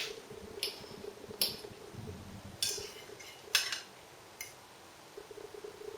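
Cutlery clinking and scraping against a plate of baked macaroni: about six short, sharp strokes spread over the first four seconds or so, with the last one lighter.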